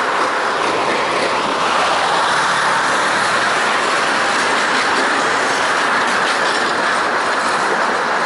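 Tatra trams rolling past on street track: a steady noise of steel wheels running on the rails.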